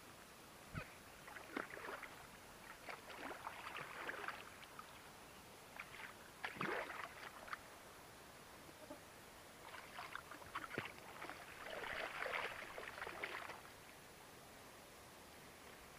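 Water splashing in three spells of a second or more each as a hooked wels catfish thrashes at the surface.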